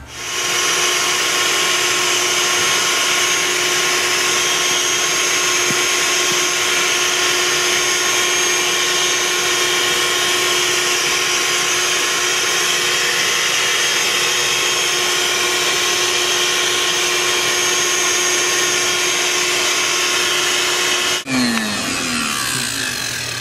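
Bee vacuum running steadily with a motor whine as it sucks honey bees off the comb. About 21 seconds in it cuts off and winds down, its pitch falling.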